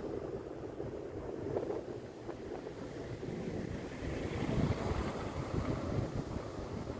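Wind buffeting the microphone in an uneven rumble, gusting harder about four seconds in.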